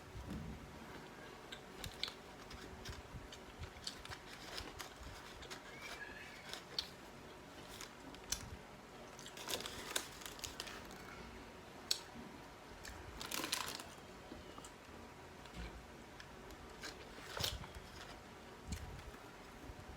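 Close-up eating sounds: a person chewing and handling chicken wings and crinkly takeout packaging, with scattered small clicks, crunches and rustles.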